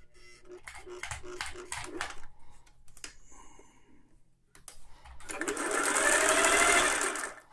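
Singer 401A sewing machine stitching. It makes a short run of slow stitches, about four a second, then speeds up, sews fast for about two seconds and slows to a stop near the end. The machine has just been cleaned, oiled and greased and is sewing a decorative pattern stitch.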